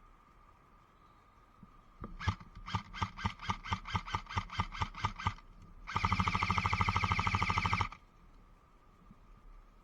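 Airsoft gun firing: a quick string of single shots, about six a second for around three seconds, then a short pause and a full-auto burst of about two seconds that stops abruptly.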